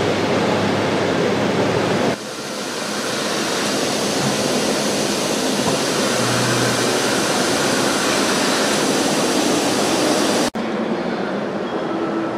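Steady loud hiss of steam escaping from the ČSD class 555.0 steam locomotive 555.0153 as it stands in the station. The hiss breaks off abruptly and resumes twice, about two seconds in and near the end.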